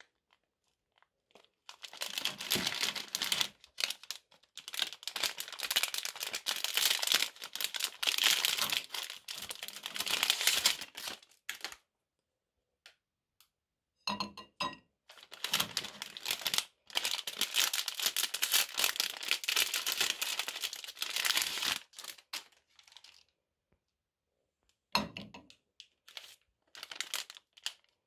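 Plastic wrappers of chocolate-coated ice cream bars being torn open and crinkled by hand. There are two long spells of crinkling with a pause between them, then shorter crinkles near the end as another wrapper is handled.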